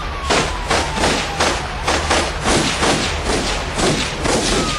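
A rapid string of gunshots, about three a second and evenly spaced, in a police shootout picked up by a patrol car's dash camera. A siren's falling wail sounds faintly underneath.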